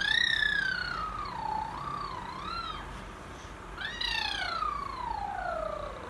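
A toddler girl's high-pitched, wordless vocal sounds. First comes one long wavering call that rises and falls for nearly three seconds. After a short pause a second call slides steadily down in pitch.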